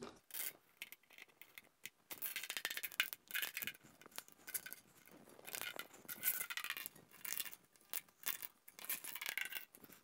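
Tubeless rim tape being pulled off its roll and pressed into the bed of a carbon bicycle wheel rim: faint crackling and rubbing in short, uneven spells, with scattered small clicks.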